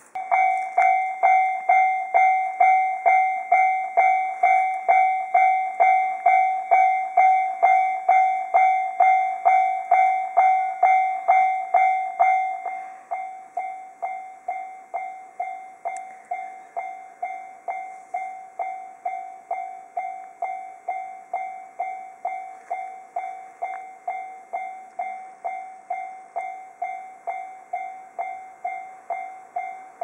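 Japanese railway level-crossing warning bell ringing at about two strikes a second, sounding because the crossing is active. About twelve seconds in it drops in loudness and keeps ringing.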